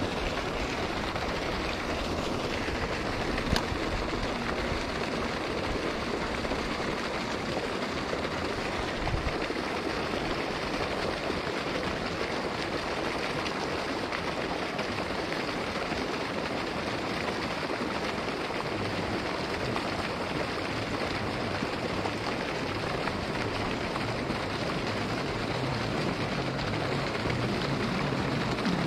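Steady splashing hiss of a water jet spraying from a pipe onto a pond's surface, with one brief sharp click about three and a half seconds in.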